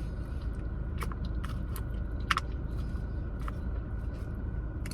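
A person chewing a mouthful of carne asada fries close to the microphone, with several short wet mouth clicks and smacks, over a steady low rumble.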